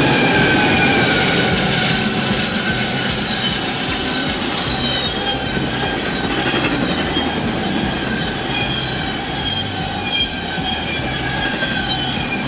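Train rolling along the rails, with high, wavering wheel squeal over a steady rumble.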